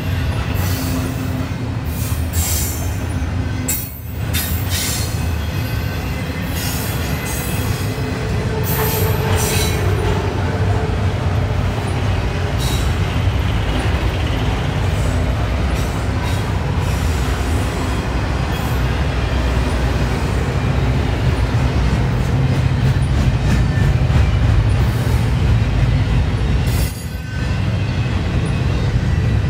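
Slow-moving CSX intermodal freight train rolling past, a steady low rumble of wheels on rail with high-pitched wheel squeals and screeches mostly in the first half. The sound dips briefly twice, about four seconds in and near the end.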